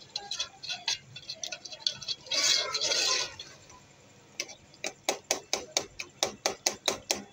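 Metal spoon stirring minced meat in a metal pot, knocking and scraping against the pot. A dense burst of scraping comes about two seconds in, then a quick, even run of clinks, about four to five a second, in the second half.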